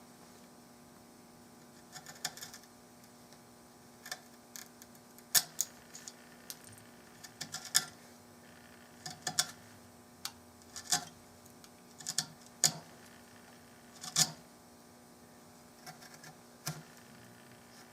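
Wood chisel paring walnut from a gunstock around the trigger guard, sharp irregular cutting clicks singly and in small clusters every second or two.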